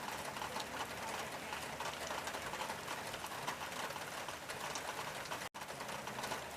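Rain on a tin roof: a dense, steady patter of drops striking the metal. It cuts out for an instant about five and a half seconds in.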